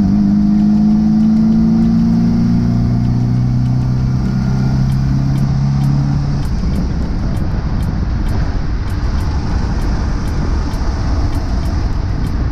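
A 1974.5 MGB's 1.8-litre four-cylinder engine pulls under throttle with a steady exhaust note, just after a gear change. About six seconds in, the engine note gives way to wind and road rush as the car cruises.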